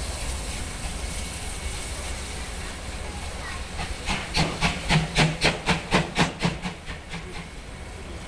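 DR class 50 steam locomotive 50 3501, a two-cylinder 2-10-0, hissing steam, then working its exhaust in a run of sharp chuffs, about four to five a second, as it pulls away. The chuffs are loudest about halfway through and fade after about three seconds.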